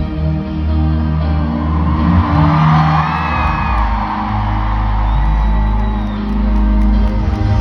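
Live pop concert: the band holds sustained, slow instrumental notes while the audience cheers, with high screams and whoops swelling about two seconds in.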